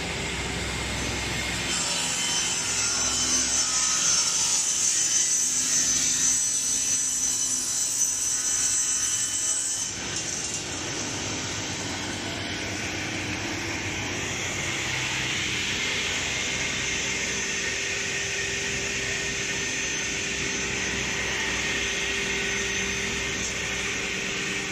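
Sliding table panel saw cutting lengthwise through a wood-grain board at a 45-degree blade tilt: a high-pitched cutting whine from about two seconds in until about ten seconds. After that the blade keeps spinning free with a steady hum.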